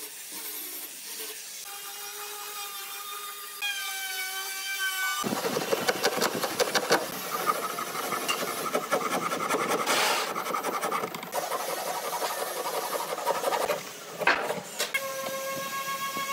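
An angle grinder with a sanding disc whines against pine, its pitch stepping slightly. Then a hand file rasps rapidly back and forth across a pine block for about nine seconds. Near the end there is one sharp short crack, and a power-tool whine returns.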